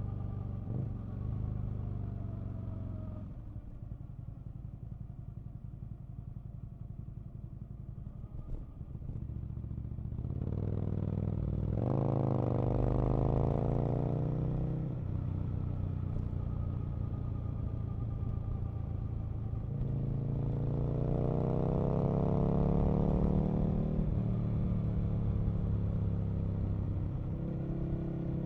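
Aprilia RSV Mille's 998 cc V-twin engine heard from the rider's seat: it runs at low revs off the throttle for the first ten seconds, then accelerates twice, its pitch climbing, about ten and again about twenty seconds in.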